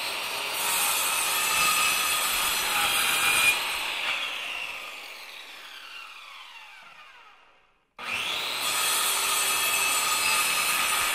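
A power tool cutting, then winding down with a falling whine as it fades out. The same sound starts again abruptly about eight seconds in.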